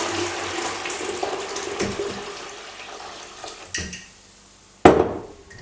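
Watery hydroxide slurry pouring from a glass jar into a plastic jug, a steady splashing stream that tapers off over the first three or four seconds. A single sharp knock, the loudest sound, comes near the end.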